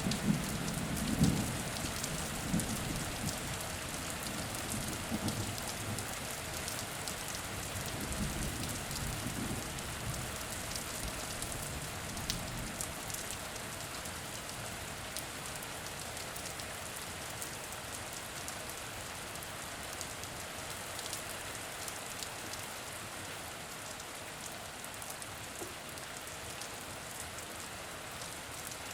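Steady rain falling, a continuous hiss with fine ticks of individual drops. A low rumble of thunder dies away over the first several seconds.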